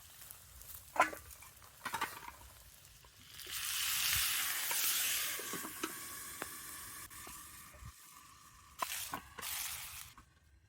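Sweet potato frying in a pan over a campfire. After a few sharp knocks, a loud sizzle bursts up about three seconds in and slowly dies down, the sound of soy sauce hitting the hot pan. A second, shorter sizzle comes near the end.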